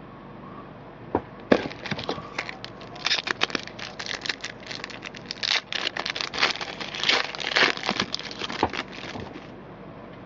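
A trading card pack wrapper being torn open and crinkled. There is a busy run of crackling rustles and sharp snaps from about a second in until shortly before the end.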